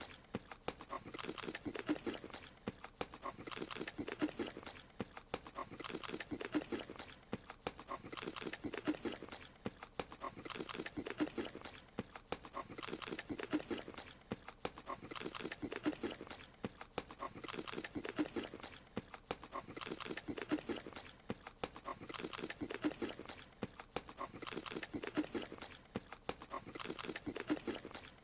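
Cartoon eating sound effect: a small creature munching and chewing in quick, clicky bursts. The same chewing loop repeats about every two and a quarter seconds.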